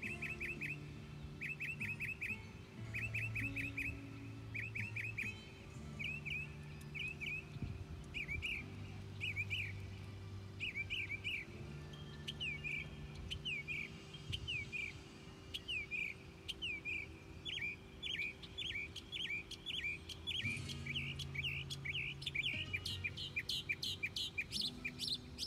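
Small birds chirping over and over in short downward-sliding notes, first in quick clusters of four or five, then in a busier, almost continuous run near the end, over a steady low hum.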